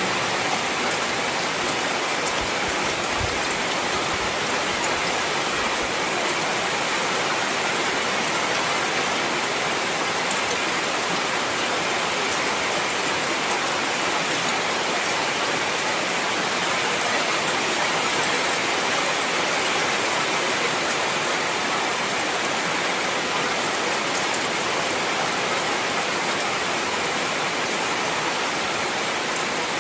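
Heavy rain falling steadily, a dense even hiss of drops on a surface.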